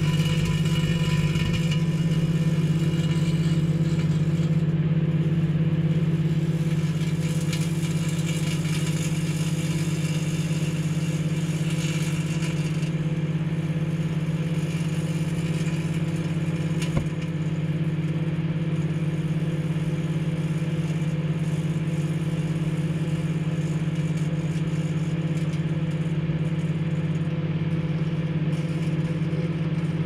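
Microwave oven running with an aerosol deodorant can inside, a steady electrical hum. There is a single sharp click about halfway through.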